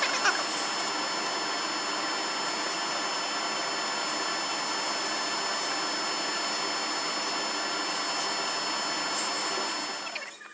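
A thick aluminium block being sanded flat by hand, rubbed back and forth on sandpaper over a flat plate: a steady, even scraping noise that fades out near the end.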